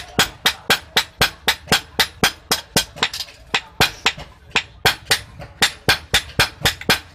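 Hand hammer striking a curved steel chopper blade (boti) on a steel anvil block, blow after blow in a steady fast rhythm of about four metallic strikes a second.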